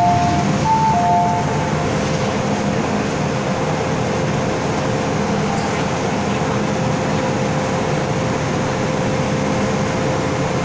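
MTR M-Train door chime, a high-low two-note tone played twice, ending about two seconds in. After it comes the train's steady hum and hiss of air conditioning and equipment as it stands at the platform with its doors open.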